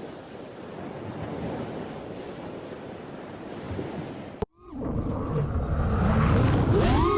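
Steady rushing noise that cuts off abruptly about four and a half seconds in. Then a motor runs, its pitch swooping up and down near the end.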